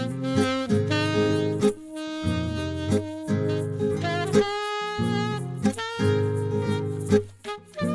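Instrumental music without vocals: a melody of held notes over a bass line, with regular drum hits.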